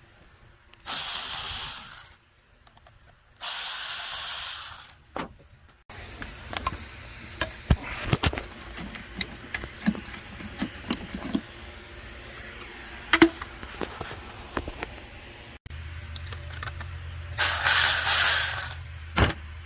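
Cordless electric ratchet whirring in three short bursts as it turns bolts and a hose-clamp screw, with metallic clicks and clinks of tools and parts between the bursts.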